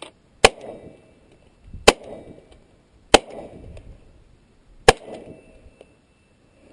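Glock 19 9mm pistol fired four times at an uneven, deliberate pace, each shot a sharp crack followed by a brief echo.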